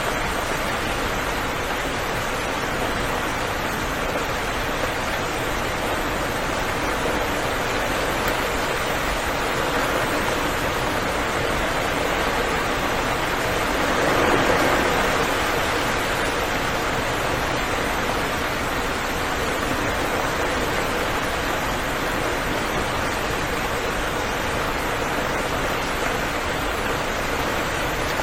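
Steady rain falling, an even hiss that swells briefly about halfway through.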